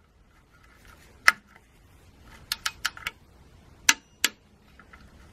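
Torque wrench on a car's oil sump plug being tightened to 30 Nm, making sharp single clicks: one about a second in, a quick run of four about two and a half seconds in, then two more.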